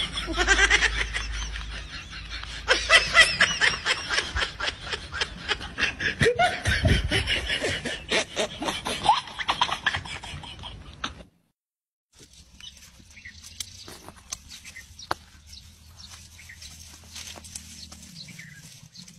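A boy laughing hard in rapid, repeated bursts for about eleven seconds. Then it cuts off abruptly and only a faint background with a few light ticks remains.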